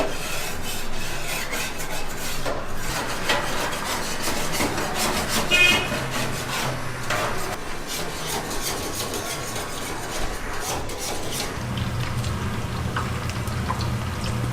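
Kitchen utensils scraping, stirring and clinking against cookware, with many short clicks throughout. A steady low hum comes in about twelve seconds in.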